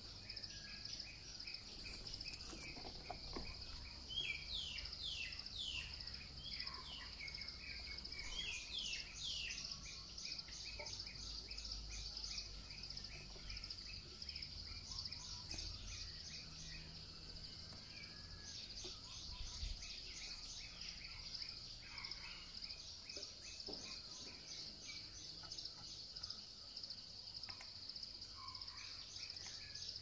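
Insects drone steadily at a high pitch. Over the drone come several bursts of rapid, repeated bird chirps, the busiest about 4 to 10 seconds in, with shorter bursts around 15 and 20 seconds and near the end.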